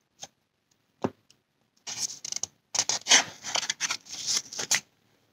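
Paper picture-book pages being handled and turned: a light tap and a knock, then about three seconds of rustling and scraping of paper.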